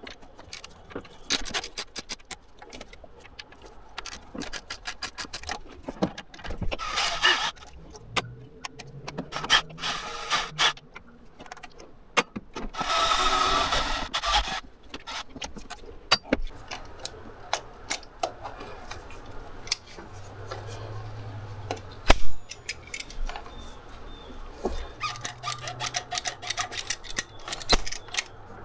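Hand tools clicking and clinking on metal bolts in an engine bay, with a cordless drill-driver running for about two seconds near the middle to back out a 12 mm bolt.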